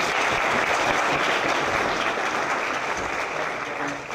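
Audience applauding a guest speaker's introduction, dying away near the end.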